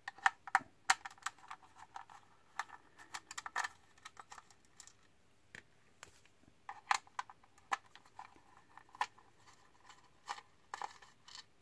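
Small sharp clicks and taps of a screwdriver working screws out of a handheld tester's plastic case, coming in scattered clusters with short quiet gaps between.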